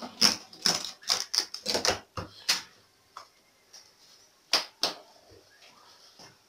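A quick run of sharp clicks and taps for about two and a half seconds, then two more clicks near the middle: hand work on a front-loading washing machine's door lock as it is taken out.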